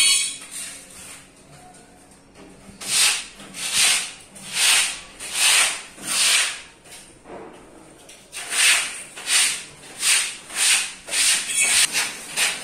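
Rhythmic rasping strokes of hand-tool work: five even strokes under a second apart, then after a short pause a quicker run of about eight.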